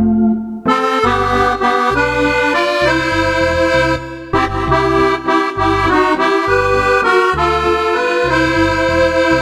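Roland FR-4X digital accordion playing a tune on an accordion voice: a melody over a moving bass-and-chord accompaniment, with a brief break about four seconds in.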